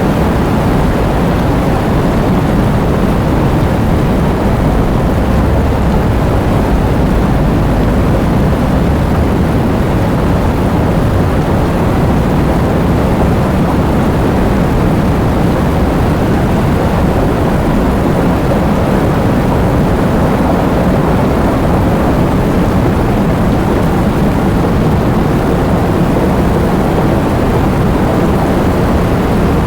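Tornado sound effect: a loud, steady, low rushing wind noise that holds without a break, with little high hiss.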